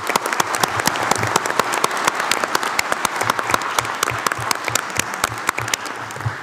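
Audience applauding: many hands clapping steadily, fading a little near the end.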